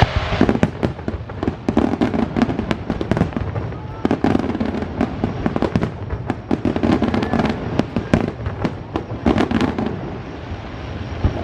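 Fireworks going off: rapid popping and crackling, with louder clusters of bangs every two to three seconds.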